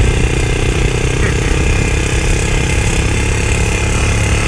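Four-wheeler (ATV) engine running steadily.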